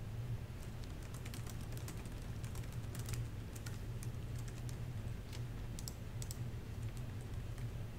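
Typing on a laptop keyboard: quick, irregular key clicks, over a steady low room hum.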